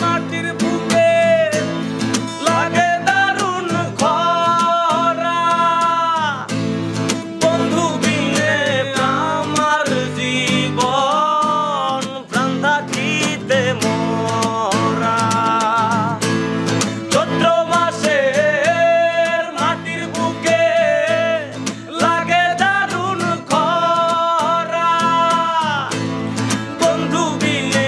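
Two acoustic guitars strummed in a steady rhythm while men sing a song, the voice holding long, wavering notes between shorter phrases.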